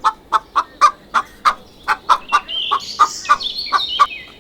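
Chicken clucking in a rapid run of short clucks, about four to five a second, with higher, thinner calls over them in the second half.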